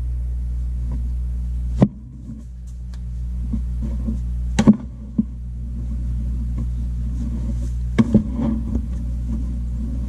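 Steady low hum with a few sharp taps and light rustles, about two seconds in, near five seconds and around eight seconds: a cloth pudding bag of dried peas being handled and set down on the countertop.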